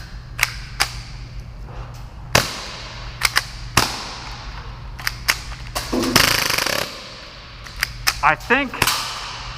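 Full-auto Tokyo Marui Hi-Capa airsoft pistol, fed by a high-pressure air tank, firing irregular single pops with a short rattle of a few shots about six seconds in. Its worn valve knocker no longer releases air properly, so it shoots like a springer.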